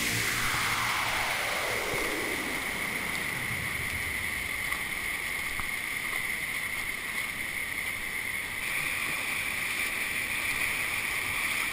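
Steady rush of the Mujib river's fast-flowing current around boulders in the canyon. During the first few seconds a music track ends with a falling electronic sweep.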